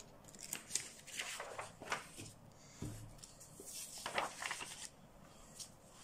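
Sheets of paper being handled and slid into place: faint rustling with a few short taps, in scattered bursts.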